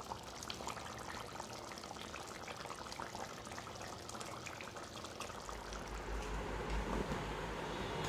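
Thick mutton curry bubbling at a simmer in a metal wok, a steady stream of small pops and sputters. About two-thirds of the way in, a low hum comes in and the sound grows a little louder.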